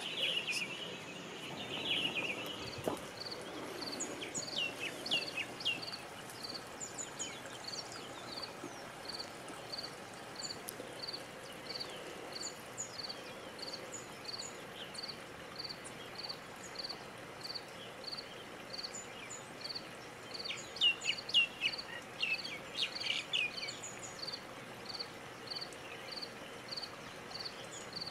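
Outdoor bird and insect ambience over a steady hiss: a short high note repeats just over once a second throughout, and bursts of quick falling bird chirps come about four seconds in and again, louder, around twenty seconds in.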